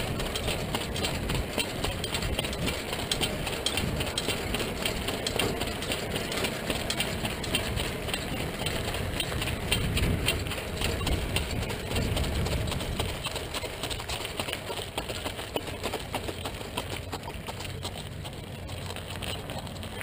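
Steady rumble of wind and wheels on a dirt track, heard from a camera riding on a harness-racing sulky behind the horse. It eases off gradually over the last several seconds.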